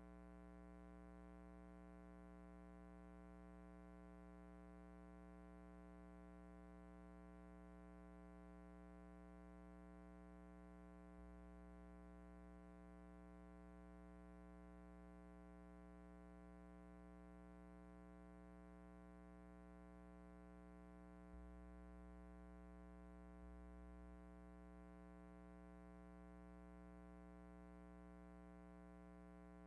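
Near silence: an empty soundtrack carrying only a faint, steady hum that does not change.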